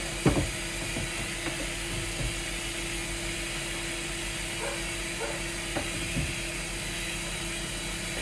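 Dishes being washed by hand: scattered knocks and clinks of crockery and utensils, several in the first two seconds and a few more later, over a steady hum and an even background hiss.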